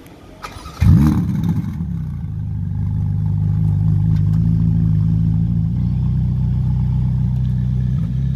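Ferrari Roma's twin-turbo V8 starting up: a brief cranking whirr, then the engine catches with one loud flare about a second in and settles into a steady, fast idle through the exhaust.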